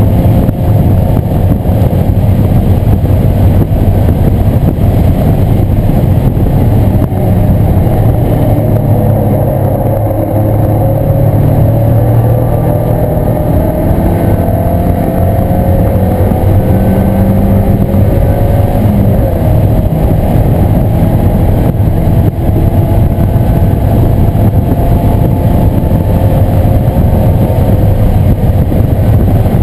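1997 Mazda Miata's four-cylinder engine running hard on a race track, its pitch repeatedly rising and falling as the car accelerates and slows through the lap.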